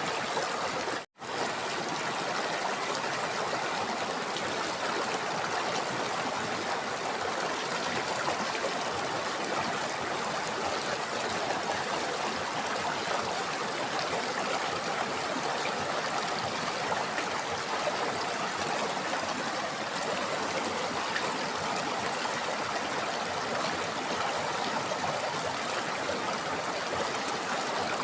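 River water flowing in a steady, even rush. The sound cuts out for an instant about a second in, then carries on unchanged.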